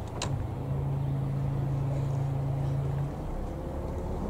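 Motor cruiser's engine running steadily at low speed, its note dropping to a lower hum about three seconds in. A brief click comes just after the start.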